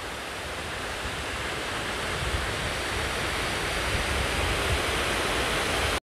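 Waterfall rushing: falling water pouring over a rock cliff in several streams, a steady noise with a low rumble underneath, growing slowly louder.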